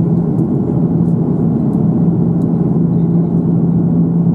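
Steady cabin drone of an Airbus A330-300 in flight, heard from a window seat over the wing: engine and airflow noise with a steady low hum.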